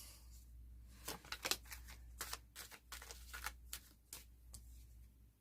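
Tarot cards being shuffled and handled by hand: a faint run of irregular flicks and clicks.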